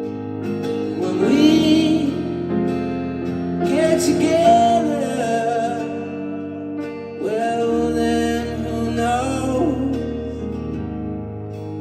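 Live band playing a slow song: a voice sings long, wavering phrases over guitar and held low notes.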